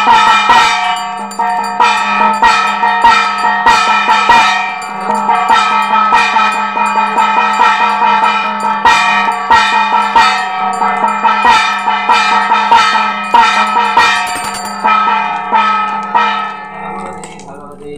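Puja bells ringing fast and continuously with drum beats over a steady low drone, the ringing that accompanies the arati flame offering at a homa fire; it fades near the end.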